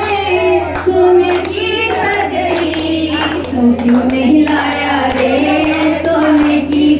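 Group of women singing a devotional Tulsi vivah song together in held, gliding notes, with scattered hand claps.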